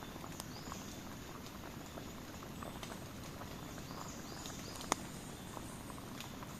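Campfire burning: wood crackling with scattered small pops over a low steady rush of flame, and one sharper, louder pop about five seconds in.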